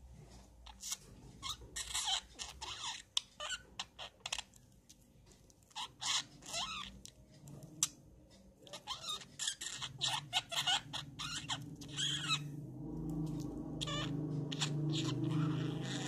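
Budgerigar chattering to herself: bursts of quick clicks, squeaks and warbling notes with short pauses. A lower, steadier sound takes over for the last few seconds.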